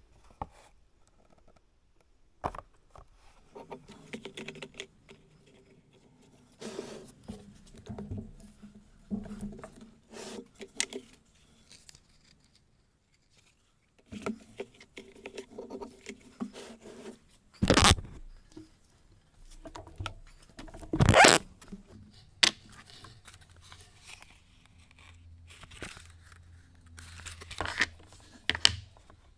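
Bench handling sounds as leather wallets and small parts are shuffled, scraped and set down, with two loud knocks a few seconds apart near the middle.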